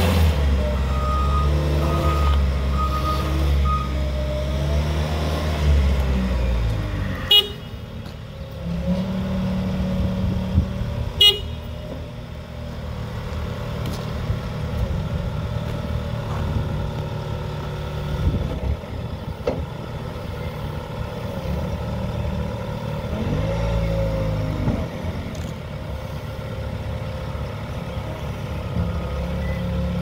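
Bobcat S62 skid steer's diesel engine running while the machine manoeuvres and raises its loader arms and bucket, the engine note shifting up and down as it works. Two sharp knocks sound about seven and eleven seconds in.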